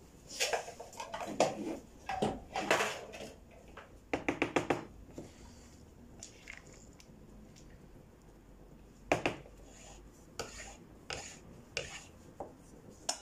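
Kitchen utensils knocking and scraping against a pot and bowl while a pot of soup is stirred with a wooden spoon: scattered knocks, with a quick run of taps about four seconds in and a single sharper knock about nine seconds in.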